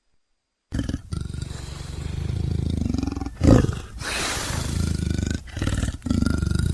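Leopard growling: a low, rough, rapidly pulsing rumble that starts just under a second in and is broken by short pauses. Its loudest growl comes about three and a half seconds in, followed by a breathy hiss.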